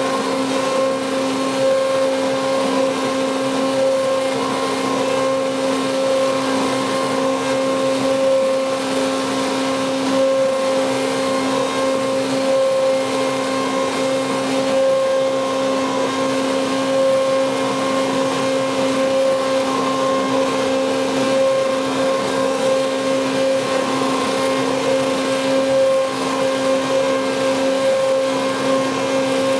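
Handheld stick blender running steadily, a constant motor hum, its head submerged in thick cream soap batter to blend it toward trace.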